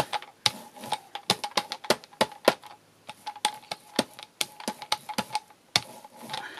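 Hand brayer rolling back and forth over tacky gesso and acrylic paint on card, giving an irregular run of sharp, crackly clicks as the roller lifts off the wet paint.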